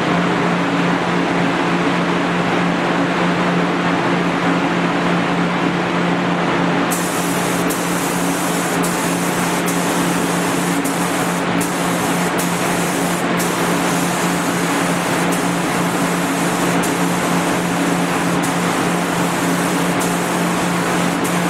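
Gravity-feed paint spray gun on an air hose spraying paint: a steady rushing hiss over a low steady hum, with a brighter, higher hiss joining about a third of the way in.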